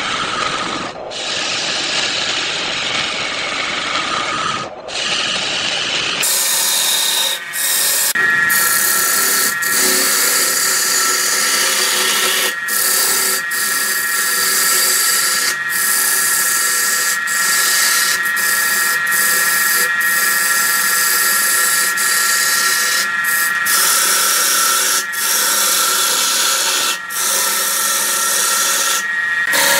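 Wood lathe spinning a wooden blank while a hand-held turning tool cuts into it: a steady, rough cutting noise over the machine's running hum. About six seconds in, the sound changes to a steady high whine with cutting noise, broken by several brief gaps.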